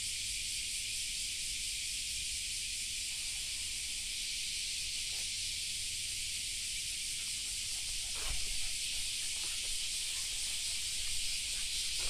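A steady high-pitched hiss, with a few faint short scuffs and rustles in the second half as the leashed Shiba Inu moves off.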